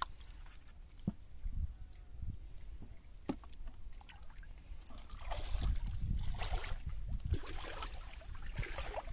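Shallow water sloshing and splashing as a person wades and handles plastic-bottle fish traps. There are a couple of sharp clicks in the first half, and the splashing comes in irregular surges through the second half.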